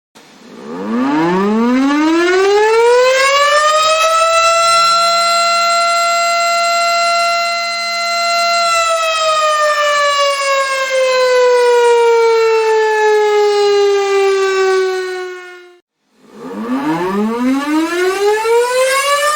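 Tornado siren (civil defense warning siren) winding up in pitch over a few seconds, holding a steady wail, then slowly winding down. Near the end it stops abruptly and begins winding up again.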